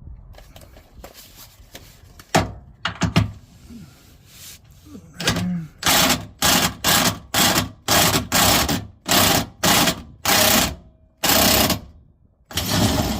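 Hand ratchet wrench clicking in short strokes, about two a second, as a 13 mm bolt on the fuel tank cover is turned. A few sharp knocks come before the ratcheting starts.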